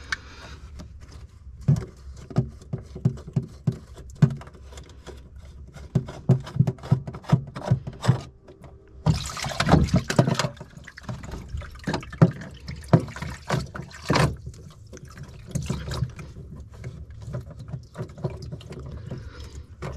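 Lake water gushing up through the open speed/temperature transducer thru-hull into the bilge for about a second, about nine seconds in, as the plug is swapped for the transducer. Before and after it come scattered knocks and clicks of the plastic fittings being handled.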